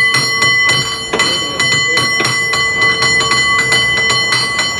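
San Francisco cable car bell rung in rapid strikes at an uneven, syncopated rhythm, about four or five a second. Its tones ring on and overlap between strikes.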